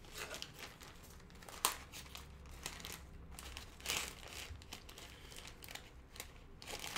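Packaging crinkling and rustling as a shipping box is opened and unpacked by hand, with a few louder, sharper rustles, about one and a half seconds and four seconds in.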